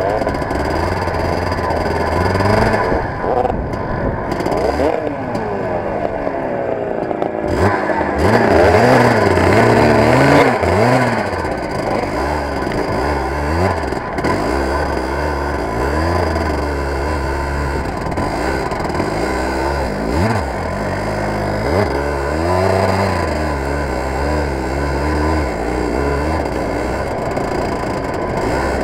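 Racing kart engine heard from on board the kart, revving up and down over and over as the driver accelerates and lifts off through the turns.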